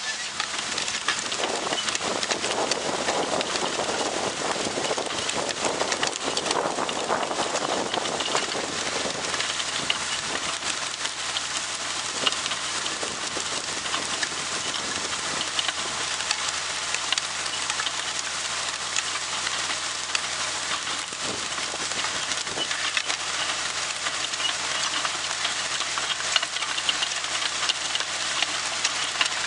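Tractor running steadily while pulling a John Deere RWA disc through soil, heard as a steady hissing, rattling noise over a low engine drone.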